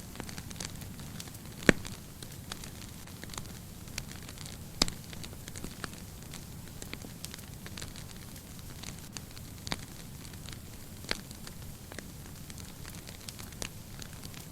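Fireplace fire crackling steadily, with a low rumble of flames and irregular sharp pops, two louder ones within the first five seconds.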